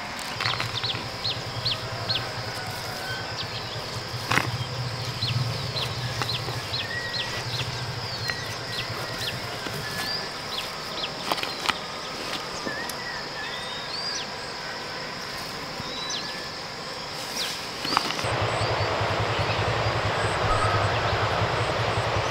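Open-field rural ambience: many short, high chirps in quick succession from birds, over a steady high insect buzz and a low hum. About 18 seconds in the background gets louder and hissier, with the low hum returning.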